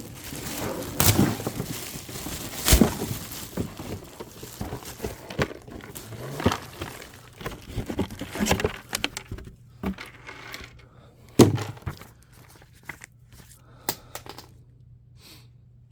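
Boxes and their contents being handled and set down while a storage-unit haul is sorted: a run of knocks, clatters and rustles, with the loudest knocks about a second in, about three seconds in, and near eleven seconds. The handling thins out in the second half.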